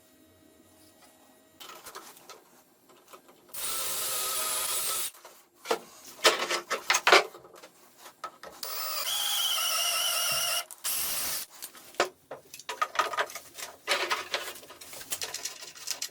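A small power tool with a whining motor runs in two short bursts of about one and a half and two seconds, with clicks, knocks and rubbing of workpiece handling between and after them.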